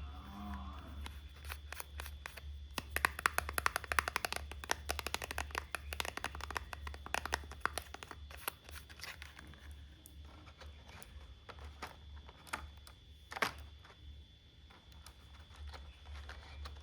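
Quick, light clicking and rattling of small plastic toy-set pieces and packaging being handled. The clicks come thick for a few seconds, then thin out, with one sharper click near the end, over a steady low hum.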